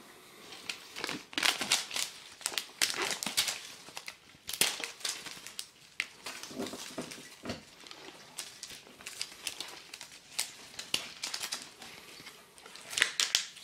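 Plastic packaging crinkling as an adhesive seal is peeled off a large plastic egg filled with foil-wrapped chocolate bars. It comes as irregular crackling rustles, busiest in the first few seconds and again near the end.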